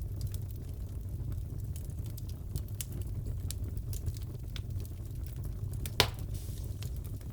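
Wood fire crackling in a fireplace, with scattered small snaps over a steady low rumble and one loud pop about six seconds in.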